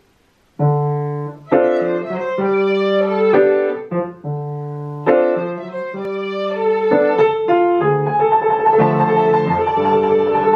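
Grand piano plays chords, starting about half a second in. A violin joins about two-thirds of the way through with long bowed notes over the piano.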